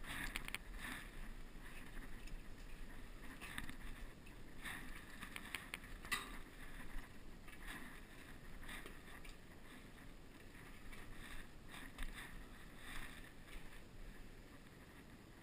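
Footsteps scuffing and crunching on a gritty, debris-strewn floor, with clothing rustle and a few sharper clicks and knocks, the sharpest about six seconds in.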